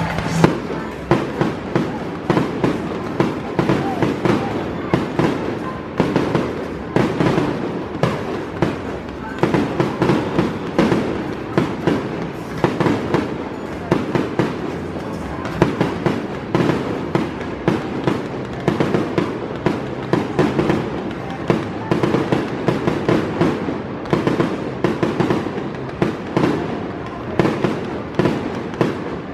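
Aerial fireworks display: a dense, continuous string of sharp bangs and crackles, several a second, as rockets go up and shells burst overhead.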